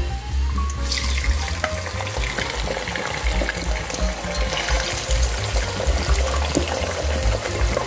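Cubed potatoes dropped into hot sunflower oil in a deep pot, the oil starting to sizzle about a second in and sizzling steadily on as more pieces go in. Background music with a beat plays underneath.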